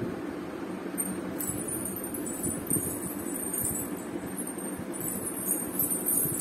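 Small metal bells jingling on and off from about a second in, over a steady low hum.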